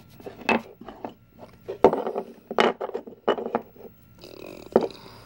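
Wooden burr puzzle pieces knocking and clicking against one another and the table as they are handled and fitted: a series of sharp wooden knocks, the loudest a little under two seconds in, and a short rubbing sound of wood sliding a little past four seconds.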